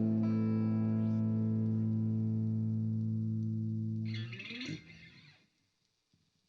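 Ambient electronic music from a Roland guitar synth driving an Elektron Digitone FM synthesizer: a held, sustained chord. About four seconds in it breaks off in a short noisy swell with a falling pitch and dies away to silence, ending the piece.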